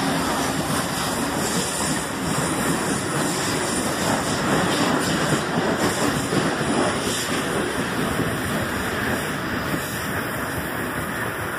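CNR 3000-series electric multiple unit train running along the platform, its wheels rumbling on the rails in a steady noise that grows a little fainter over the last few seconds.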